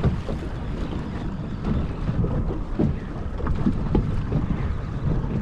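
Wind buffeting the microphone aboard a small fishing boat: a steady low rumble with scattered small knocks.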